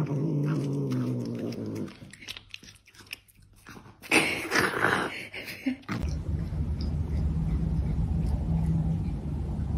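A cat growling low while it gnaws a piece of tomato, then quieter chewing and biting, and a louder noisy stretch about four seconds in. After that comes a steady low drone.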